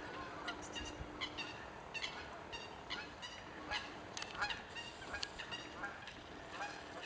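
A flock of geese honking, many short calls following one another in quick succession.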